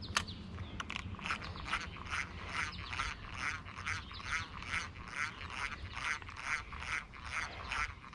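1950s Luxor (Pezon et Michel) spinning reel being cranked on a retrieve, its gears squeaking in a regular chirp about three times a second. A sharp click comes just after the start.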